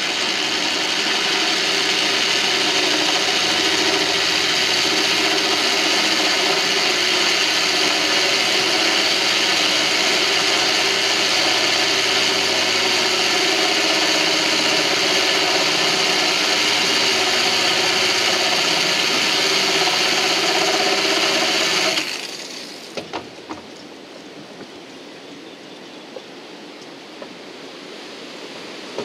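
Corded DeWalt drill running steadily, drilling a small hole through the glass of an aquarium sump with light pressure. It stops suddenly about 22 seconds in, leaving a much quieter stretch with a few small ticks.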